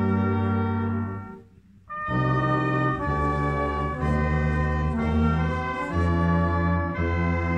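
Brass ensemble of trumpets, trombones and tuba playing slow, held chords that change about once a second, with a short breath pause about one and a half seconds in.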